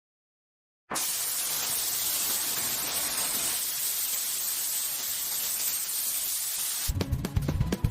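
A steady, even hiss starts abruptly about a second in and holds for about six seconds, then gives way near the end to music with a beat.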